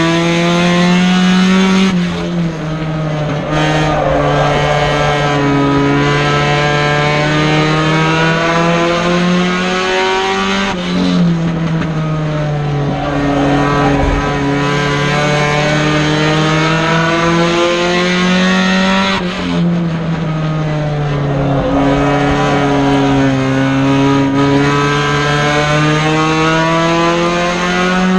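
Four-cylinder Mini Stock race car engine at racing speed, heard from inside the cockpit. The revs climb steadily along each straight and drop sharply as the driver lifts for the turns, in a cycle repeating about every eight and a half seconds, three times.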